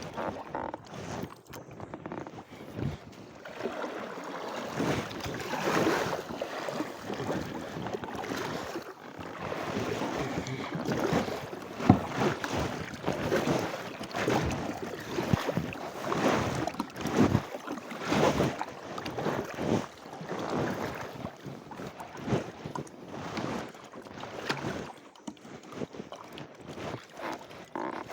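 Kayak paddle strokes in river water, with splashes swelling and fading about every second or two. There is one sharper knock about midway.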